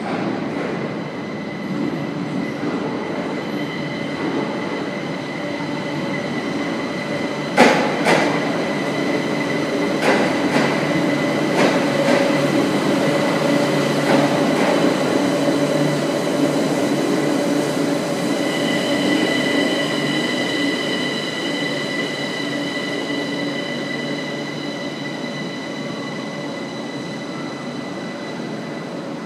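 Madrid Metro Line 9 train running into an underground station and coming to a stop along the platform. The cars rumble under steady high-pitched tones, and a series of sharp wheel clacks over rail joints comes between about 8 and 14 seconds in. The sound eases off near the end as the train halts.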